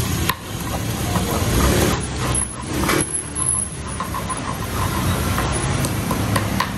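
Steady roadside traffic noise, mainly motorbikes passing on the road beside the stall, with faint voices in the background.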